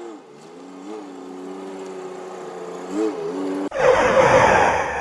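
Intro sound effects: a steady engine-like hum with a few quick rises in pitch, then a sudden loud rushing noise about three and a half seconds in.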